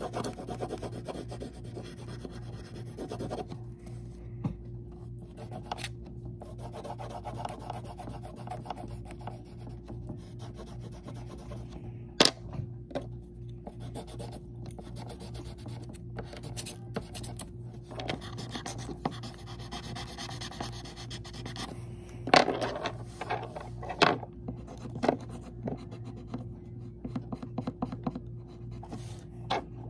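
A pen being rubbed back and forth on paper while colouring, in stretches of scratchy strokes, with a few sharp knocks in between.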